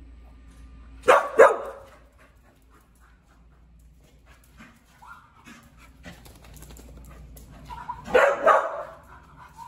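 Australian Cattle Dog barking: two sharp barks about a second in, then two more near the end.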